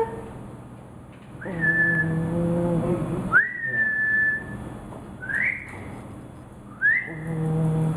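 Sleeping pug snoring loudly: two long low buzzing snores, one about a second and a half in and one near the end, each with a high nasal whistle on top. Between them come whistles on their own, one held steady and one sliding up in pitch.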